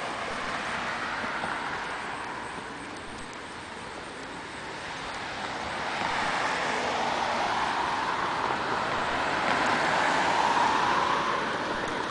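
Passing car on the street: tyre and engine noise that swells and is loudest about ten seconds in before fading.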